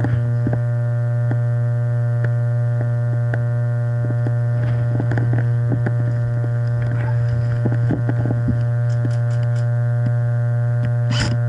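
A loud, steady electrical hum with a stack of overtones, unchanging throughout, with a few faint clicks and knocks scattered through it and a sharper noisy burst near the end.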